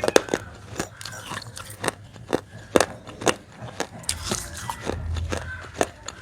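Pieces of baked clay being bitten and chewed: a run of sharp, irregular crunches, a few a second.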